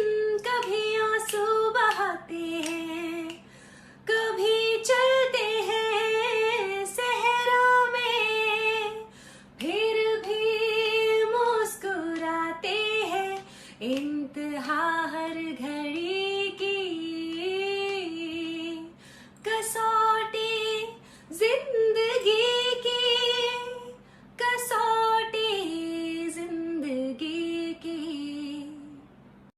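A woman singing a Hindi song solo and unaccompanied, in phrases of a few seconds each with short pauses for breath between them, over a faint steady hum.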